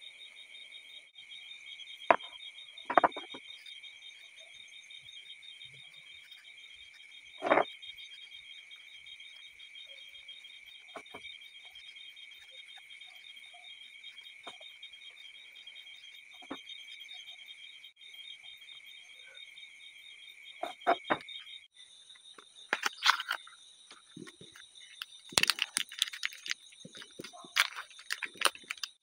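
Insects trilling steadily and high in the background, with a few sharp handling knocks in the first eight seconds. In the last several seconds, the plastic wrapper of an M-seal epoxy putty stick crinkles and tears as it is opened.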